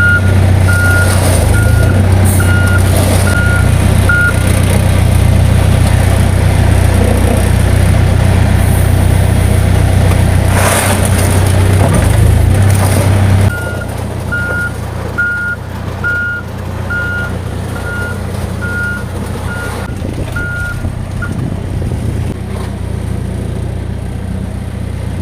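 Backhoe engine running loud and steady while its reversing alarm beeps about one and a half times a second. The beeping stops after about four seconds. About halfway through, the engine suddenly drops to a quieter, lower running and the beeping starts again for several seconds.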